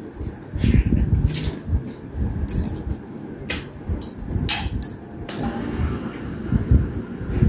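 Close-up eating sounds of a person eating a large tiger prawn with her fingers: irregular chewing, sucking and lip smacks, with several sharp clicks spread through.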